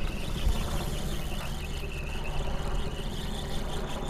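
Wind buffeting the camera microphone with a fluttering low rumble, and a faint steady high whine underneath.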